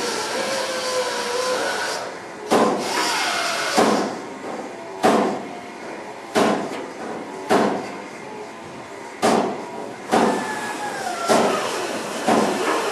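Gas torch flame hissing steadily, with a wavering whistle, while a wooden paddle strikes and shapes softened body lead. The sharp knocks start about two seconds in and come roughly once a second, about nine in all, with the torch hissing between them.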